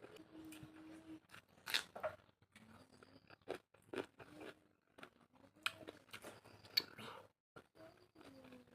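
Close-up chewing and crunching of pork, with irregular sharp crunches, the loudest about two and seven seconds in.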